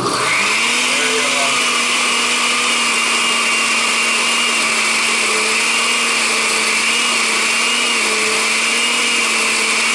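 Countertop blender switched on and reaching speed at once, then running steadily with a loud, even motor whine as it blends a thick basil pesto mixture that is not yet turning over well.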